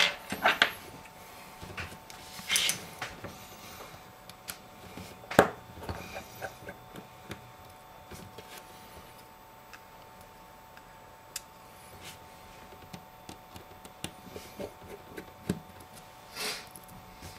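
Scattered light clicks and taps of small hand tools and iPhone 5 screen-assembly parts as screws are taken out, with one sharper click about five seconds in. A faint steady whine runs underneath.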